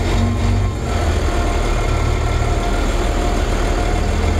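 Race truck's diesel engine running steadily at low revs, heard from inside the cab.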